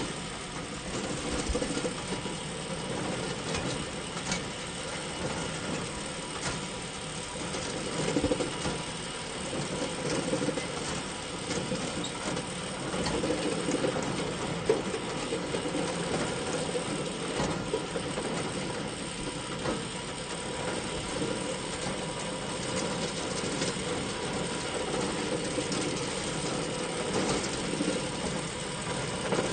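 Hay bale elevator running: a steady, continuous clatter of its chain conveyor, full of small rapid ratcheting clicks.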